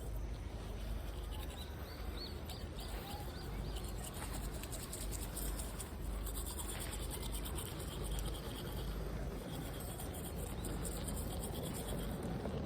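Toothbrush scrubbing teeth, a fast scratchy rhythm, over a steady low rumble of wind on the microphone, with a few high chirps in the first few seconds.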